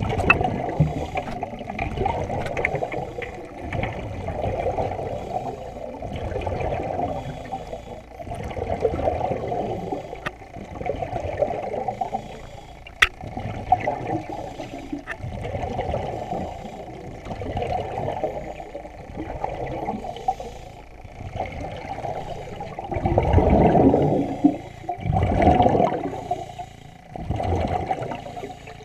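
Muffled underwater noise of moving water, heard through an action camera's waterproof housing, swelling and fading every couple of seconds, with a few faint clicks. It is loudest near the end.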